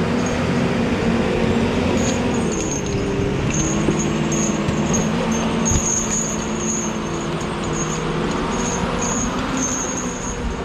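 Tigercat 610E skidder's diesel engine running as the machine drives past close by and pulls away, the sound slowly fading; the engine's pitch drops about two seconds in.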